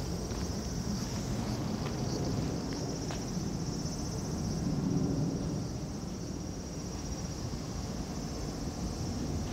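Outdoor ambience: a low rumble, like a passing vehicle or aircraft, swells about five seconds in and then eases, over a steady high drone of insects.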